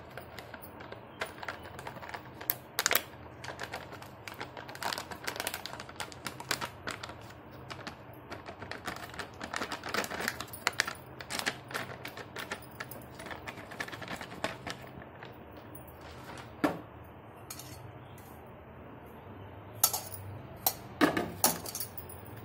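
Plastic pouch crinkling and crackling as it is squeezed and shaken out over a steel bowl, with light metal taps and clinks. A few louder clinks come near the end.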